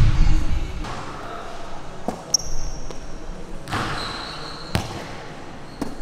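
Basketball shooting practice: the ball strikes the rim and bounces several times on the hard court floor, a sharp knock with each bounce, with a couple of short, high sneaker squeaks in between.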